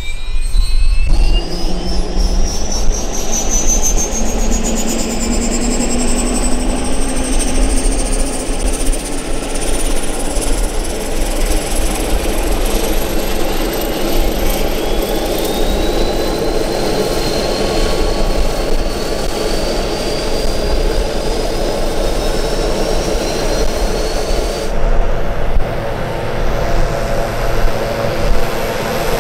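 Grob G120TP's Honeywell TPE331 turboprop starting up: a high whine rising steadily in pitch as the engine spools up, with a loud rushing noise joining about a second in. Near the end the sound changes abruptly to a steadier engine and propeller drone.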